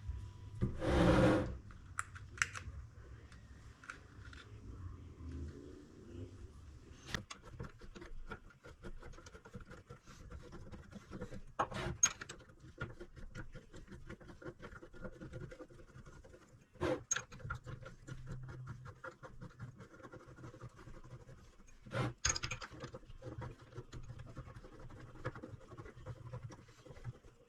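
Reassembled four-jaw lathe chuck being oiled and worked by hand: faint scratching and light metal clicks, with a few sharper clicks spread through. There is a short rush of noise about a second in.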